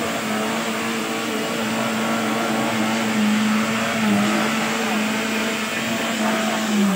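Maruti Suzuki Wagon R hatchback's engine held at high, steady revs as the small car is driven in low gear through deep mud, a constant whine over a rough hiss, with the revs starting to drop right at the end.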